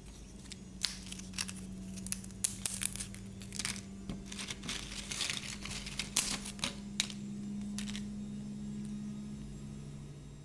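Crisp fried potato chips crackling and rustling as a hand sifts through them in a plastic bowl and lifts one out. The crackles stop about seven seconds in, leaving a steady low hum.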